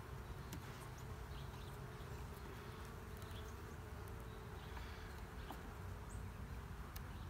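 Honey bees from an open hive humming steadily and low, with a few faint clicks of a metal hive tool against the wooden frames.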